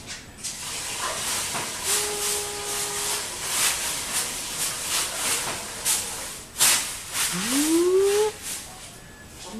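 Rustling hiss with repeated scratchy strokes. A held tone sounds for about a second starting about two seconds in, and a call slides upward in pitch near the end.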